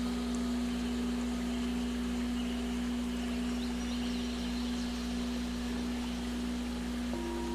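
A steady electronic drone tone, a 'healing frequency', held at one pitch over a constant hiss-like noise bed. A second, higher steady tone joins about seven seconds in.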